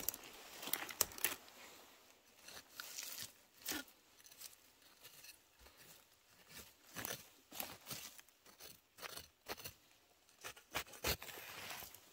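Dry forest-floor litter crunching and snapping, with scraping and rustling in irregular short bursts and sharp cracks.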